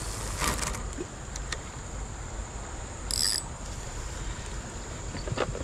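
Steady high-pitched drone of insects in riverside vegetation, over a low rumble. A short buzzy burst comes about three seconds in.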